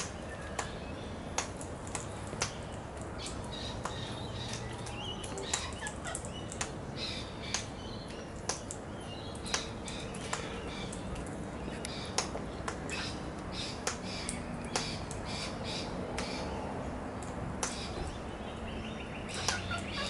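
Sulphur-crested cockatoos clicking in the background: sharp, irregular clicks about once a second, with a few faint high bird chirps between them.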